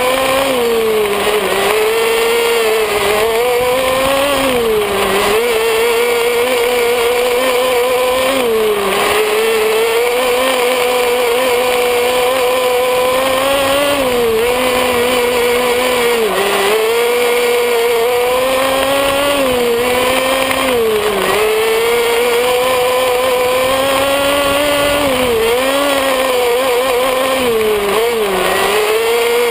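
Small engine of a radio-controlled off-road buggy, heard close up from on board, running at high revs; its pitch dips and climbs back again every few seconds as the throttle is eased and reopened.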